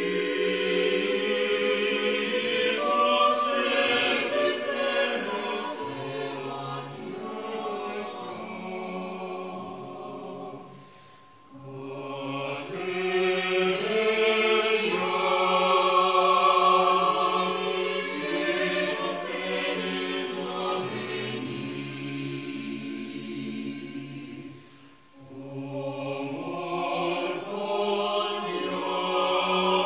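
Mixed chamber choir singing a cappella in sustained, slow-moving chords. The phrases break off briefly twice, about eleven and twenty-five seconds in, before the voices come back in.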